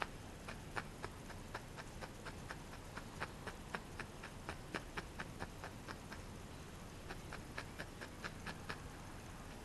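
Barbed felting needle stabbing repeatedly into a ball of wool core on a foam pad, clicking as the barbs catch and drive the fibres in, about three or four clicks a second.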